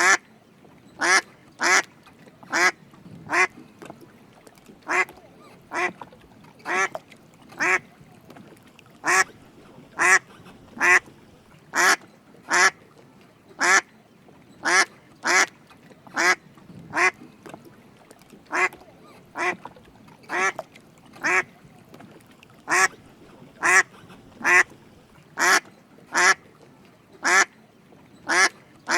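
Drake mallard quacking: short single quacks repeated over and over, about one a second.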